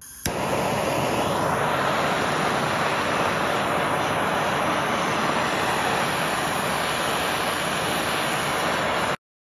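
Blowtorch flame running steadily against a pressurised two-stroke expansion chamber, heating the dented metal so the air pressure inside (about 60 PSI) pushes the dent out. It starts with a click and cuts off abruptly near the end.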